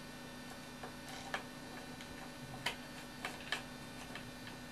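Several irregular sharp metallic clicks and ticks as a hand driver tightens bolts and fiddles with hardware in a model helicopter's frame, mounting the lipo tray, over a steady electrical hum.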